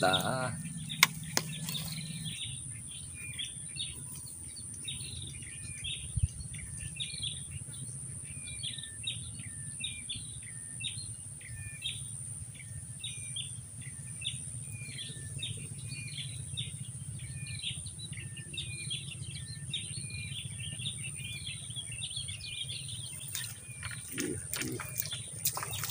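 A bird calling over and over in short hooked chirps, roughly one or two a second, over a steady low rumble and a thin steady high whine; a few sharp clicks near the start.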